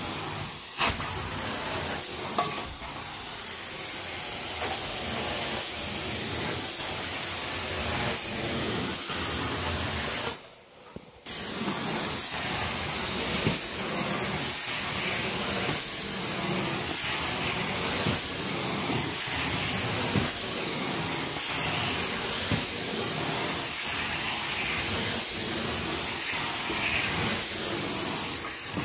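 Carpet-cleaning extraction wand hissing steadily with suction and spray as it is drawn across the carpet. The noise drops out briefly about ten seconds in.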